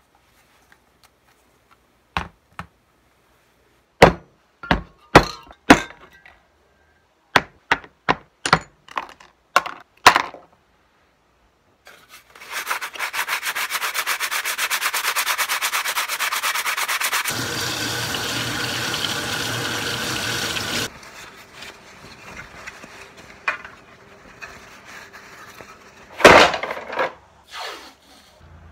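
A run of sharp clicks and knocks from plastic Nerf Recon CS-6 blaster parts being handled, then hand-sanding of the yellow plastic shell with sandpaper: a fast, continuous rasping for about nine seconds that stops abruptly. Near the end, quieter handling and a loud rip of blue painter's tape pulled off the roll for masking.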